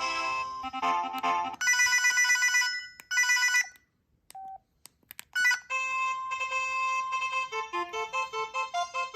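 An LG VX5450 phone's speaker playing its preloaded ringtones one after another. First the end of one tune and two short bright ringing bursts like a telephone bell. Then a pause of under two seconds with a few faint clicks, and a new electronic melody starting about five and a half seconds in.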